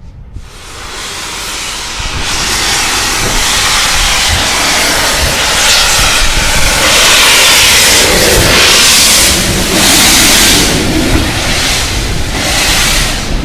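A train passing close by: a loud rushing hiss that builds over the first two seconds, then surges every second or two.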